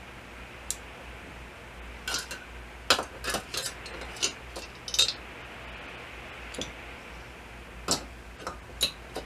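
Small metal injection-pump parts clicking and clinking against each other and their container as they are fished out of a gasoline soak: a dozen or so irregular sharp clicks, a few louder knocks among them.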